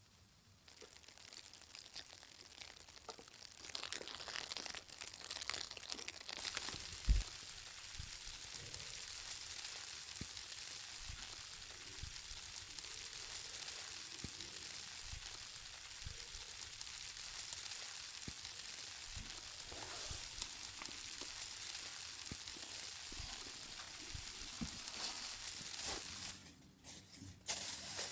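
Steak sizzling as it cooks, a steady crackling hiss with scattered pops that starts about a second in and dies away near the end.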